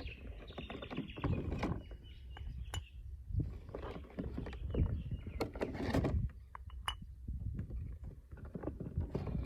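New Malossi rollers being fitted by hand into a scooter's CVT variator: irregular clicks and light knocks of the rollers and metal parts, with handling and rustling.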